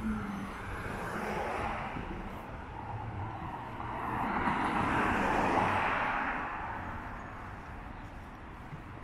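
Street traffic on a city avenue: a vehicle passes close by, its engine and tyre noise swelling to a peak about five or six seconds in and then fading away.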